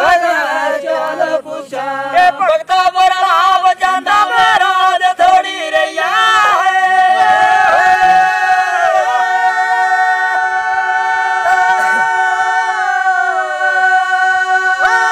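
Dogri bhakh, a traditional unaccompanied folk song, sung by a group of singers: the voices slide and bend between notes, then from about seven seconds in hold long steady notes together over a lower held note.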